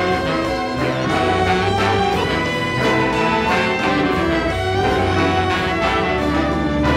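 A large ensemble of saxophones, brass, strings and drums plays together: sustained chords of horns and bowed strings over a steady pulse of drum strokes.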